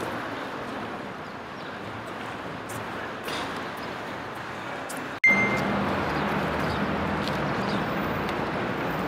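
Outdoor city ambience: steady traffic noise from nearby roads. About five seconds in it cuts abruptly to a louder stretch of the same kind of street noise, with a short high tone right after the cut.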